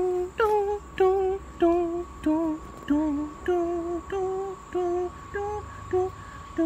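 A voice singing a simple tune in short, evenly spaced notes, about two a second, the pitch stepping up and down from note to note. A faint steady whine runs under it.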